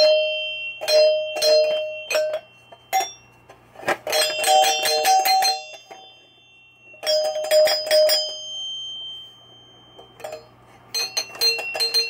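Chime box of a 1976 Williams Grand Prix pinball machine worked by hand: its plungers clack against the metal chime bars in quick bursts, ringing two or three pitches that hang and fade between bursts, with a fast run of strikes near the end. The owner thinks one of the chimes might need a little adjustment.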